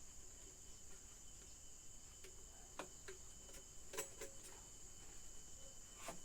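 Faint scattered clicks and knocks of plastic electric-kettle parts being handled and fitted together, over a steady high-pitched background drone.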